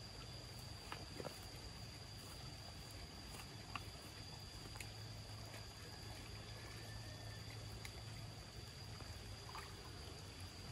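Faint outdoor ambience by a pond: a steady, thin high-pitched tone over a low hum and soft noise, with a few light clicks.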